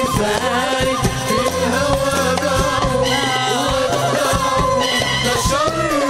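A live Arabic tarab band with a drum kit plays a melody that slides up and down over a bass and percussion pattern with a steady beat.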